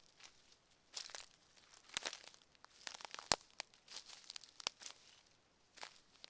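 Footsteps of a person walking on a forest floor, about one step a second, each step a short scraping crunch with sharp little clicks.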